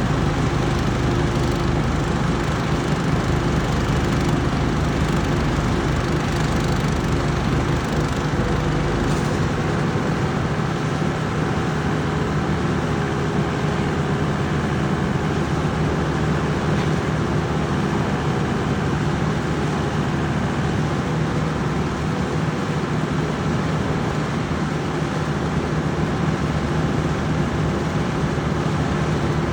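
An engine running steadily with an even hum; about nine seconds in the deepest rumble drops away.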